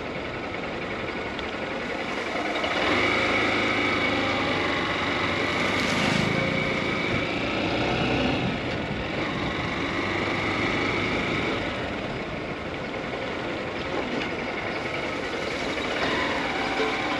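Honda Unicorn motorcycle's single-cylinder engine running under way, with wind on the microphone. It picks up and gets louder about three seconds in, then holds a steady pace.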